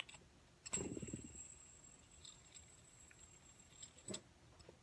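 Faint handling of a heavy metal six-armed fidget spinner in the fingers. There is a dull knock about a second in, and a steady high whine that starts with it and cuts off suddenly near the end.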